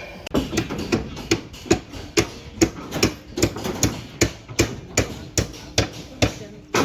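Repeated sharp knocks in an even rhythm, about two and a half a second.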